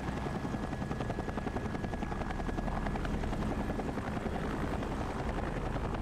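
Helicopter running steadily in flight, its rotor blades beating in a rapid, even chop.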